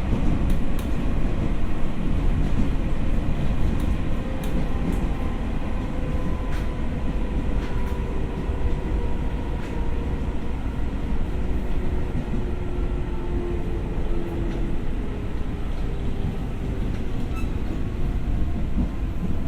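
Tokyo Metro 6000 series electric commuter train running steadily: a continuous rumble of wheels on rail with a faint whine from the traction motors, drifting slightly in pitch. Scattered light clicks from the track run through it.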